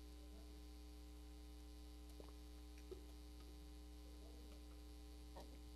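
Near silence: a steady low electrical hum, with two faint ticks a little over two seconds in and just before three seconds.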